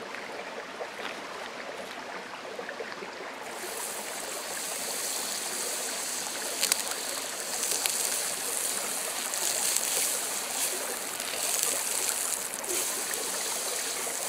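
Butter sizzling on a hot cast iron griddle, a dense hiss that starts about three and a half seconds in as the butter is spread with a spatula and carries on steadily, with a few faint clicks.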